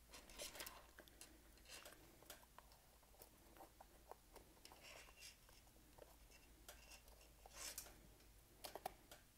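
Faint handling sounds: soft rubber rubbing and scattered light clicks as hands stretch a gas mask's rubber apron around a rubber-framed lens outsert.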